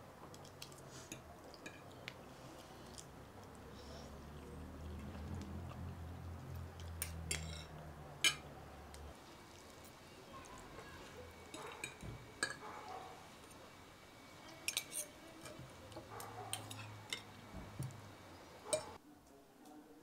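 Scattered light clinks and taps of dishes and kitchen utensils being handled, with a low hum for a few seconds in the first half.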